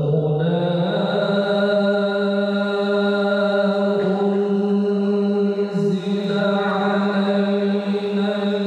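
A male qari's melodic Qur'an recitation (tilawah) into a handheld microphone. He sustains one long held note that steps up slightly in pitch at the start and then holds steady.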